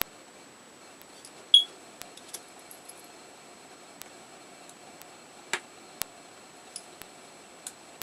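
Small clicks and taps of plastic parts being handled while an e-reader is taken apart, over a faint steady hiss. A sharp click comes about one and a half seconds in and another about five and a half seconds in.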